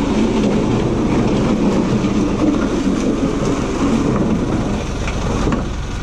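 A vehicle engine idling steadily, with a couple of light knocks about five seconds in.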